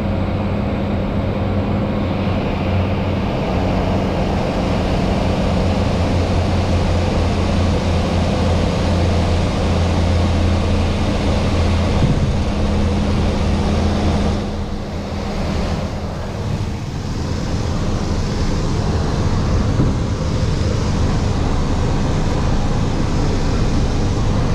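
Engines and propellers of a small twin-engine propeller plane droning in the cockpit while it rolls on the runway after landing, a steady low hum with a duller rush above it. The drone drops for a couple of seconds about fifteen seconds in, then comes back.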